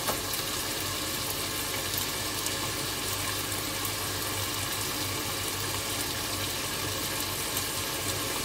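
Chicken pieces sizzling steadily in hot oil in a pot as they sear, over a steady low hum. A light knock sounds right at the start.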